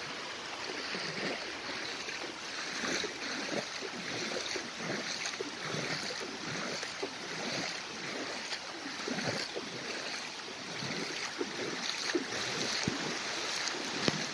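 Someone wading through shallow, muddy floodwater on a road: irregular sloshing splashes of the legs over a steady rush of water.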